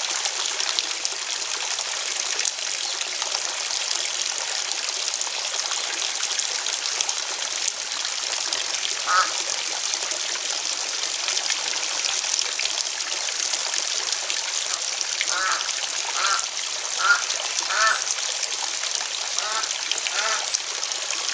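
Steady trickle of water in a garden pond, with ducks quacking: a single quack about nine seconds in, then a run of quacks near the end.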